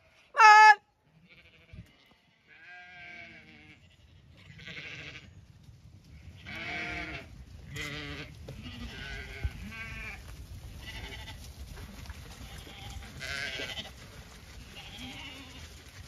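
Zwartbles ewes bleating as the flock comes up the lane: one loud close bleat just after the start, then many bleats of varying loudness, some overlapping.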